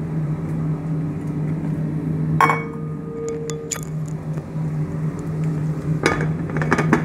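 Metal cookware on a gas range clinking: one sharp clink with a short ring about two and a half seconds in, then a cluster of clattering knocks near the end. A steady low hum runs underneath.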